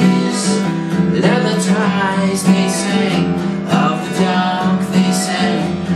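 Cole Clark steel-string acoustic guitar strummed in a steady rhythm, with a man singing over it.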